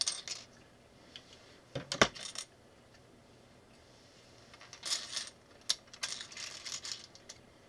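Small plastic building bricks clicking and clattering against each other and the wooden tabletop as a hand sorts through a pile of loose parts, in a few short bursts of clicks, the loudest about two seconds in.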